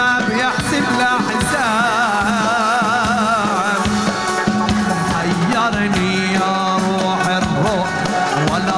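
Middle Eastern dance music from a live band: a wavering, ornamented melody over a held low note and drum beats.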